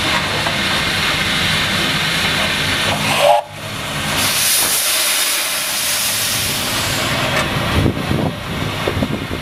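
Small saddle-tank steam locomotive moving slowly along the track with a steady hiss of steam. The sound drops out briefly a little over three seconds in, and after that the hiss is stronger and higher.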